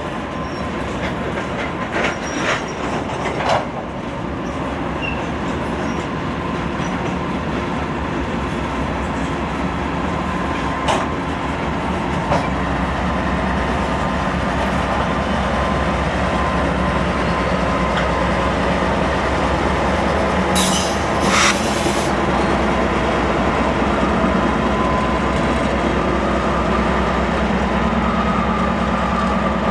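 Norfolk Southern coal train's aluminum hopper cars rolling past: a steady rumble and clatter of wheels on rail that grows slightly louder partway through. Scattered metallic clanks come in the first few seconds and again near the middle, and a short harsh wheel squeal about two-thirds of the way in.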